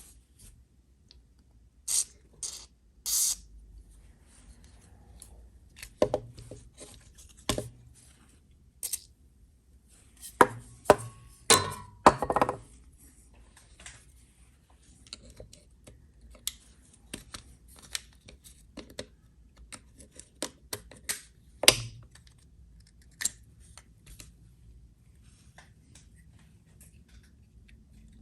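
Irregular clicks, snaps and knocks of a 1983 Pontiac Firebird headlight switch being unclipped and handled by hand. They are busiest around the middle, with one sharp knock near the end.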